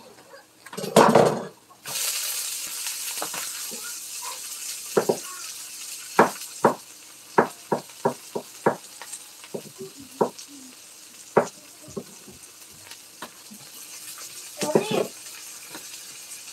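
Chopped tomatoes going into a hot non-stick wok of sautéing onions: a thud about a second in, then a frying sizzle that starts suddenly and slowly eases off. A spatula clicks and scrapes against the pan many times as the food is stirred.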